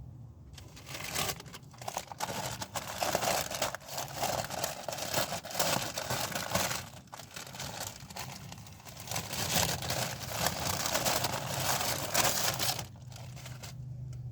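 Close-miked crunching and crackling of crisp food being bitten and chewed, in dense irregular spells with brief pauses, dying down near the end.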